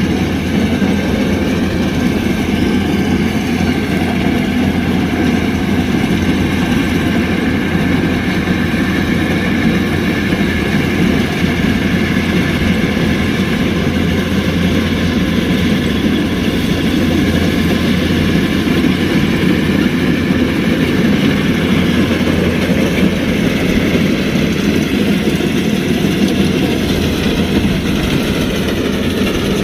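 Kubota DC-105X combine harvester's diesel engine and machinery running steadily at working speed, a loud continuous drone with a deep hum.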